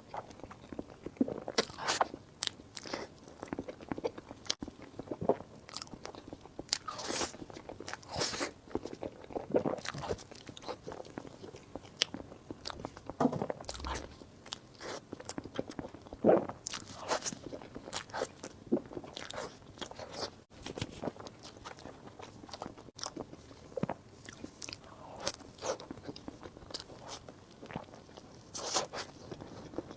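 Close-miked eating sounds: a person biting into and chewing soft and crisp desserts, with irregular bites and wet mouth sounds.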